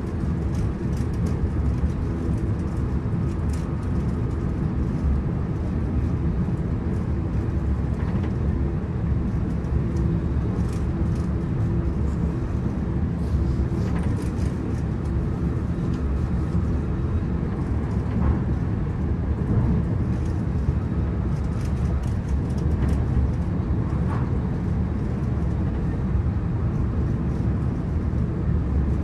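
Inside the passenger cabin of a Hitachi AT300 electric multiple-unit train running steadily: a constant low rumble from the wheels and running gear, with a faint hum and occasional light ticks and rattles.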